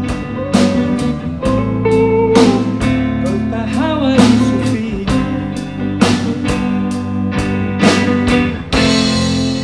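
Live blues band playing an instrumental passage between vocal lines. Electric guitars play over bass and drums, and the lead guitar bends its notes.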